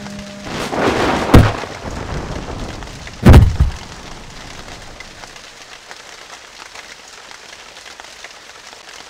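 A swelling noise ending in a sharp crack, then a second, deeper and heavier boom about two seconds later, followed by a steady faint hiss.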